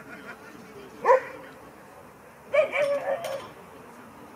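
Dog barking during play: one sharp bark about a second in, then a quick run of barks about a second and a half later.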